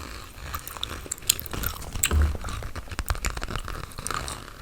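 Gum chewing close to the microphone: irregular wet clicks and smacks of the mouth and gum.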